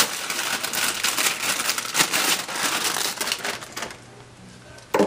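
Plastic packaging crinkling and rustling as a continuous ink supply system's cartridge set is unwrapped by hand, dying down about four seconds in.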